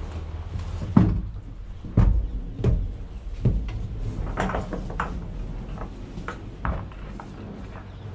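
Horse's hooves knocking on the floor and ramp of a horse trailer as it steps about: several heavy knocks roughly a second apart, then lighter ones.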